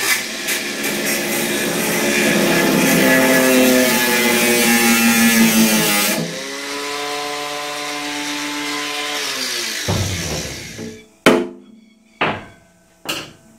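Cordless angle grinder grinding into the steel fuel tank of a Yamaha XT500 to cut away a welded tank mount, its pitch shifting under load. About six seconds in it comes off the metal and runs freely, then spins down at about ten seconds. Near the end come three sharp metallic knocks with ringing, about a second apart.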